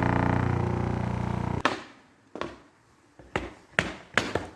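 A small electric machine buzzes steadily and then cuts off suddenly about a second and a half in. About five sharp knocks follow at uneven intervals.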